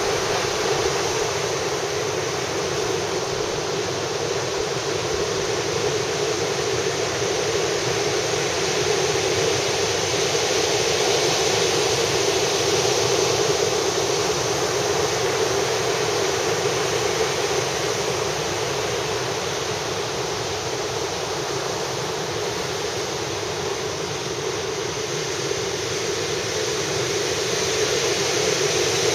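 High surf breaking on an open ocean beach: a steady roar of heavy waves raised by a typhoon, swelling and easing slowly.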